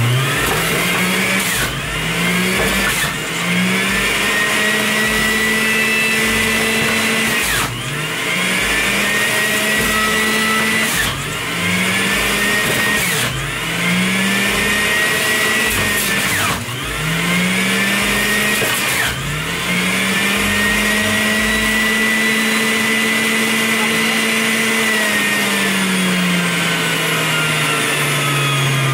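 Breville centrifugal juicer running loud, its motor hum sagging in pitch each time fruit is fed down the chute and climbing back as the pieces are shredded, about seven times over, with a sharp knock at the start of some of the sags. Near the end the pitch slides steadily down as the motor winds down.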